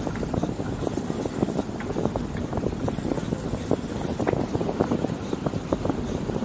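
Street noise heard from a moving bicycle: a steady low rumble of wind on the microphone and traffic, with many small ticks and rattles scattered throughout.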